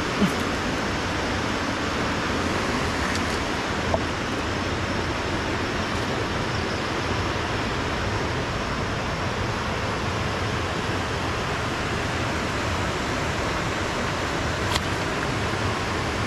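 Water rushing over a dam: a steady, unbroken wash of noise, with a couple of faint clicks, one about four seconds in and one near the end.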